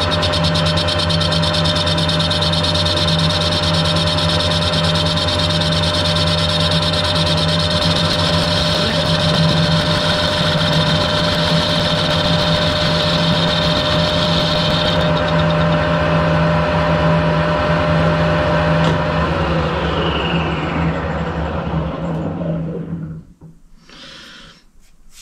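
Harrison metal lathe running with a steady hum and whine, a high hiss over it cutting off abruptly about fifteen seconds in. Near the end the lathe is switched off and winds down, its pitch falling until it stops, followed by a few faint clicks.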